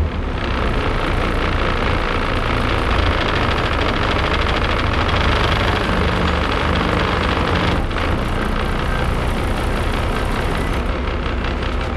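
Moving bus heard from inside the cabin: a steady low engine rumble under the rush of road and wind noise, with a brief dip about eight seconds in.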